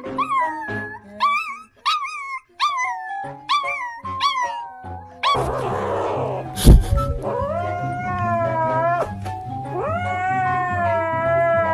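A small dog howling in two long, drawn-out calls in the second half, over background music with a steady beat. Before that comes a run of short, squeaky calls that fall in pitch, and there is a single sharp knock just before the howls.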